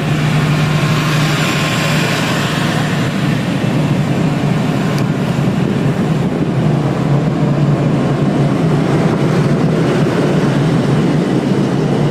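Diesel generator in a train's power van running steadily: a constant low hum over engine noise.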